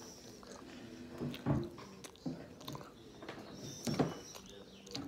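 A person chewing a mouthful of sushi close to the microphone: soft, irregular chewing and mouth noises, with two louder moments about a second and a half in and about four seconds in.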